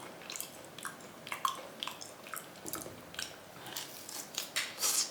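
Close-up chewing of raw meat: a string of short, irregular wet mouth clicks and smacks, a few a second.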